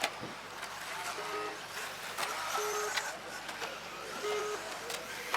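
Electric 4WD stock-class off-road RC cars running on a dirt track: a steady bed of motor and tyre noise with a few sharp clicks. Three short electronic beeps come roughly every second and a half.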